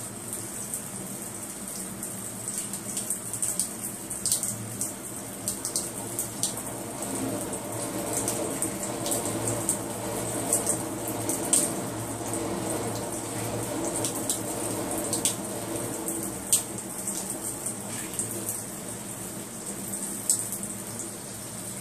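Thin stream of running water from a tap falling and splashing onto a turtle's shell and the tiled floor, a steady splashing with frequent small sharp spatters.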